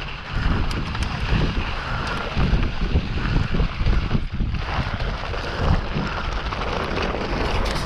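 Wind buffeting a helmet or handlebar camera's microphone during a fast mountain-bike ride, a loud gusty rush with low rumbling from the bike on rough trail.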